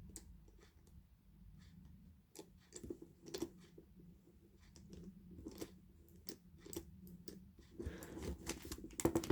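Faint, irregular small plastic clicks and taps of a MoYu RS3M 2020 speedcube and its pieces being handled and turned while it is checked for loose magnets.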